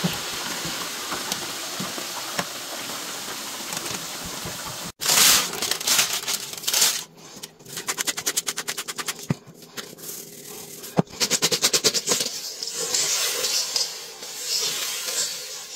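Potato chips frying in hot oil, a steady hiss. After a sudden break, a spice grinder is twisted over the bowl in two runs of rapid clicking, then the fries rustle as they are tossed in a stainless steel bowl.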